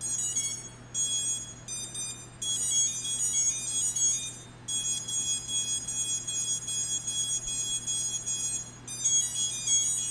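Brushless drone motors beeping through their BLHeli ESCs in runs of high-pitched tones of several pitches, the calibration beeps as the ESCs take in full throttle and then minimum throttle from the Betaflight motor sliders.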